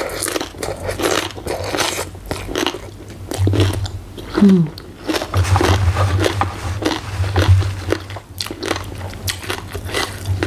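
Close-up chewing and crunching of a mouthful of green papaya salad (som tam), with wet mouth sounds and a brief falling 'mm' from the eater about halfway.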